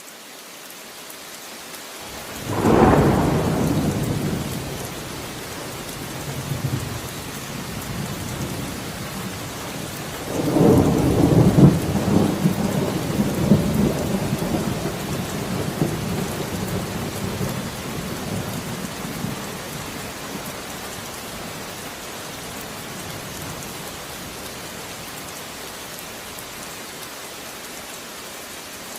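Steady rain with thunder. A sudden clap about two and a half seconds in rumbles away over a couple of seconds. A longer rolling peal starts about ten seconds in and fades out about ten seconds later, leaving the rain alone.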